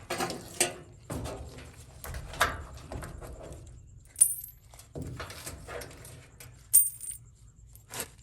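Loose coins clinking and rattling as they are gathered up and dropped, with shuffling noise between the clinks and two sharp ringing clinks, one about four seconds in and one near seven seconds.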